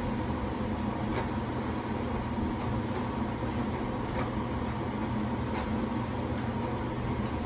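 A steady mechanical hum holding several constant tones, with faint scrapes and taps every second or so.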